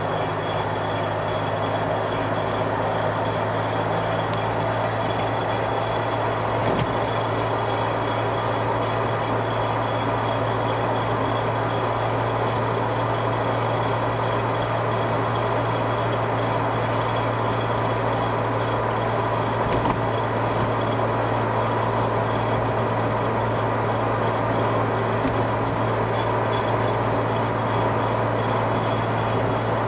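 A Jeep running steadily with a constant low drone and a steady hum over its mechanical noise, the annoying noise whose source the owner cannot trace. Two brief faint knocks stand out, about 7 seconds in and again about 20 seconds in.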